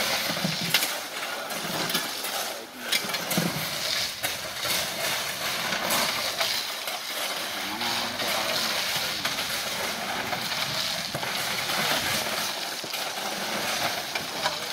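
Gravel being unloaded by hand from a truck bed: many small stones clattering and rattling as they slide and spill onto a pile, with shovels and tools scraping through them.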